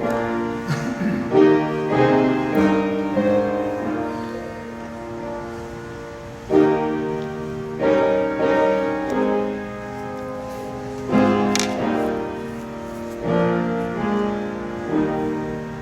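Piano playing slow chords, each struck and left to ring, with a new chord every second or two.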